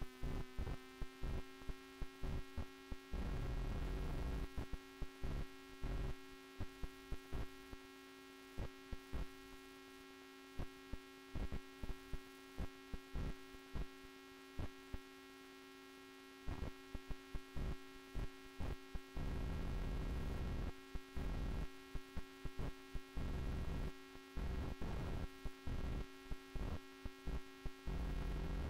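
Steady electrical hum with a ladder of overtones, broken all through by frequent short crackles and patches of low rumble that come and go.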